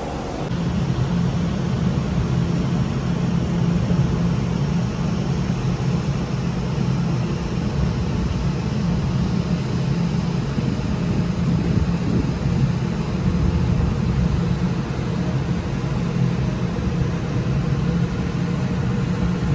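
Ship's machinery running with a steady low hum and rumble, with a light hiss over it, during a transit of a canal lock.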